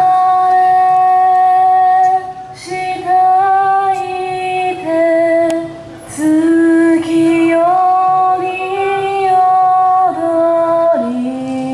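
A woman's voice singing slow, long-held notes that step up and down in pitch, dropping to a lower held note near the end, from a yosakoi dance team's performance song.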